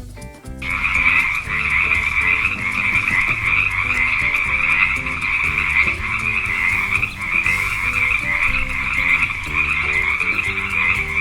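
A chorus of frogs croaking, a dense, rapid, unbroken din that starts about half a second in and cuts off suddenly at the end, over a soft background tune.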